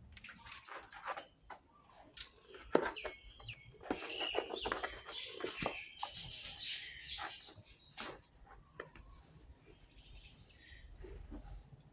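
Birds chirping among scattered clicks and rustling handling noises, which thin out after about eight seconds.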